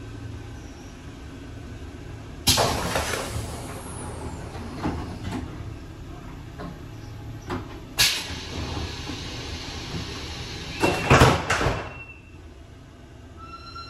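Passenger doors of an RBDe 4/4 electric railcar opening with a sudden burst of air hiss and a clunk. Several seconds later there is another sharp hiss, then the doors close with a few heavy thumps while a short steady tone sounds.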